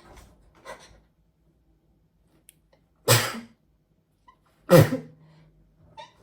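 A woman sneezing twice, about a second and a half apart, set off by sniffing pepper. Each sneeze is sudden and loud.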